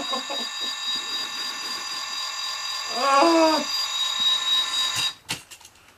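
Bedside alarm clock sounding a steady electronic alarm tone, with a person's voice breaking in briefly about three seconds in. About five seconds in there are a couple of sharp clicks and the alarm cuts off suddenly.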